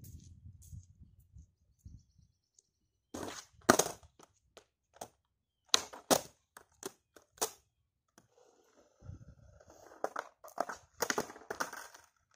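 Skateboard on concrete. Its hard urethane wheels roll with a low rumble, then come several sharp cracks and slaps as the tail pops and the deck and wheels land, in clusters a few seconds apart. Near the end, more rolling noise and a quick run of clacks as the board comes down again.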